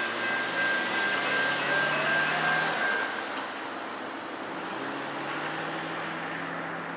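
Road traffic passing the intersection. Over it, a set of high steady tones, possibly from a crossing bell or a distant train horn, runs until about three seconds in. A low steady hum continues after the tones stop.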